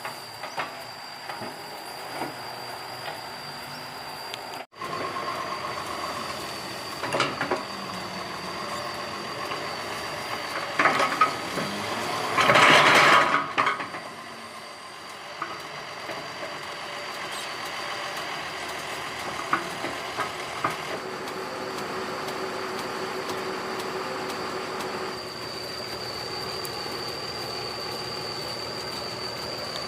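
Hydraulic excavator working, its diesel engine running steadily under a faint high whine, with a few knocks and a louder burst of clattering noise about halfway through.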